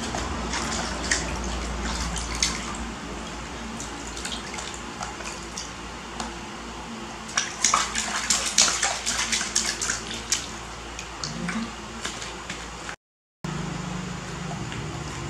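Hands splashing water in a plastic basin while a baby macaque is bathed, with a flurry of splashes from about seven to ten seconds in, over a steady low hum. The sound drops out briefly near the end.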